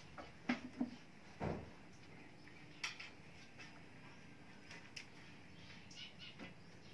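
Scattered light taps and clicks with one duller thump about a second and a half in: a German Shepherd puppy's claws and paws on a glass tabletop and plastic chairs as it clambers about and climbs down.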